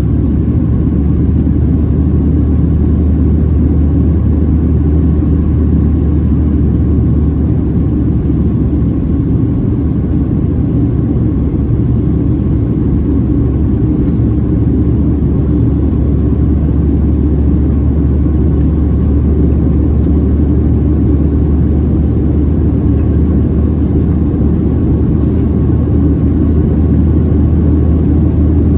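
Steady cabin noise of a Boeing 737-700 in flight: the CFM56-7B turbofan engines and airflow over the fuselage, heard inside the cabin as a loud, even low rumble with a deep hum.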